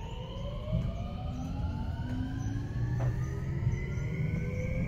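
Electric train's traction motors whining as it pulls away and accelerates, several tones rising steadily in pitch over the low rumble of the car, heard from inside the carriage.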